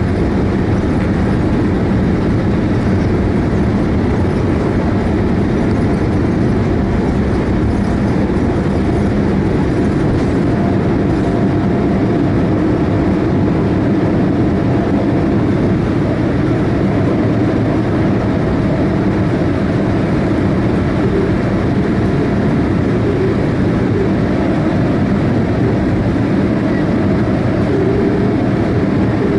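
Boeing 787-8 airliner rolling on the ground with its jet engines running: a steady, loud rumble with a faint steady tone above it.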